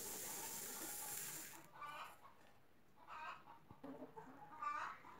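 Ground wheat meal poured from a sack into a bowl, a soft hissing rush that stops after about a second and a half. Then hens cluck faintly three times.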